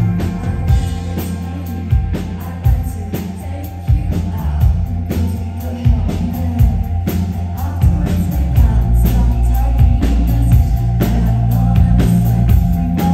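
Live indie rock band playing: a woman singing into a microphone over electric guitar, bass guitar and drums, with a heavy bass line and a steady beat.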